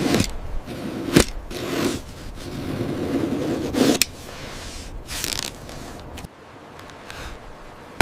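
Construction work noises: rasping scraping stretches broken by several sharp knocks, the loudest about a second in and another near four seconds.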